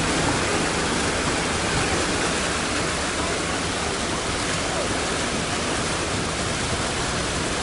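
Swift floodwater rushing past, a steady, even rush with no let-up.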